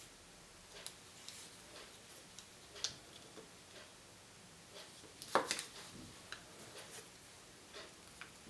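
Scattered small clicks and crinkles of plastic toy and candy packaging being handled and opened, with a louder cluster of clicks and rustles about five seconds in.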